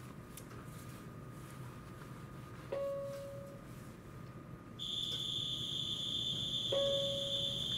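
An electronic chime sounds a single decaying note every four seconds, and about five seconds in a steady high-pitched buzzer tone switches on and holds, over a low rumble aboard a JR West 227 series electric train.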